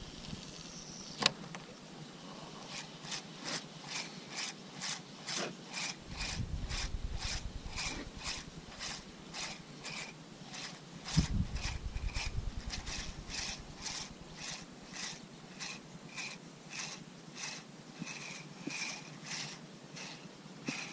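Spinning reel being cranked to retrieve a lure, with a steady rhythmic ticking of about two handle turns a second. A sharp click comes about a second in, and wind buffets the microphone with low rumbles at times.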